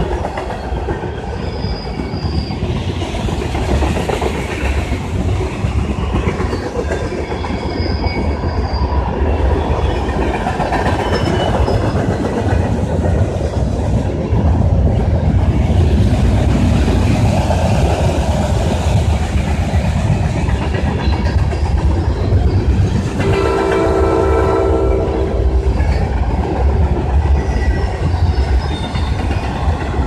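A long freight train of tank cars and boxcars rolling past, a steady rumble with wheel clatter. About 23 seconds in, a train horn sounds one chord-like blast of about two seconds.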